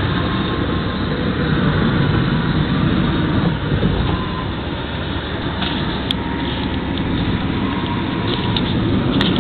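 Steady road and engine noise heard inside the cabin of a 2002 Chrysler PT Cruiser with a 2.4-litre four-cylinder engine, under way. There is a light click about six seconds in and another near the end.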